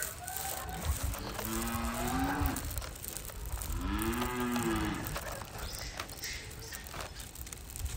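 Two drawn-out cow-like moos, 'eum-me', about a second in and again about four seconds in, each rising then falling in pitch.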